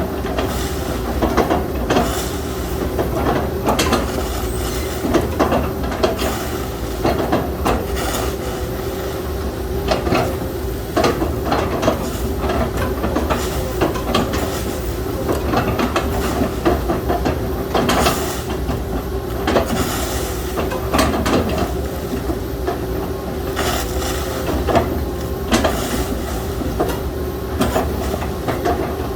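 Hydraulic excavator running under load, its engine and hydraulics giving a steady hum, with frequent irregular knocks, cracks and creaks as it works on felled oil palm trunks.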